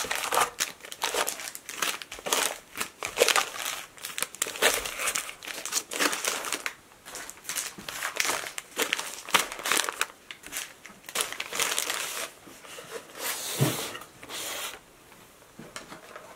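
Stiff white wrapping paper on meat packages rustling and crinkling in irregular bursts as the packages are handled and stacked in a wooden box, with a dull knock near the end.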